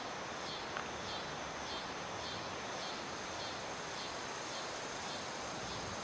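Steady outdoor background hiss with a faint high chirp repeating about every half second, fading away near the end.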